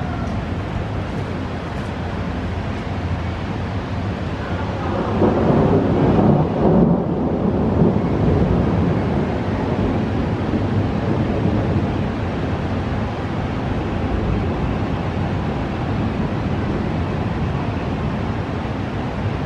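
Thunder rumbling in a storm over a city. It swells about five seconds in and rolls away over the next few seconds, over a steady hiss.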